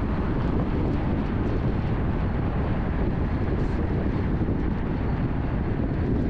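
Steady road and wind noise of a car driving, an even low rumble with no change.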